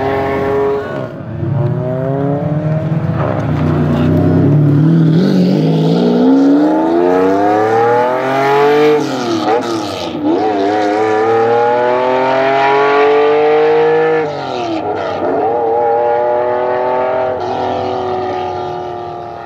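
Lamborghini Diablo GT's V12 accelerating hard through the gears. The note climbs steadily and drops sharply at each upshift, about three times, then fades as the car pulls away.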